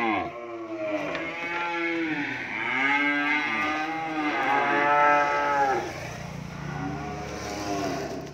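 Cream-coloured French-breed calves on a truck bed mooing repeatedly: a string of long calls, each rising and then falling in pitch.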